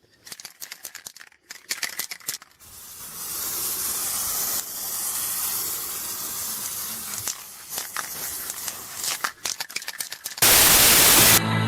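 A few light metallic clicks and rattles, then a steady spraying hiss lasting several seconds, ending in a short, much louder burst of rushing noise near the end.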